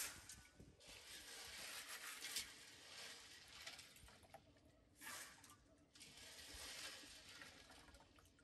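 Faint splashing and trickling of water as hands wash something in an enamel basin, with water running from cupped hands back into the basin. It comes in spells, with a short splash about five seconds in.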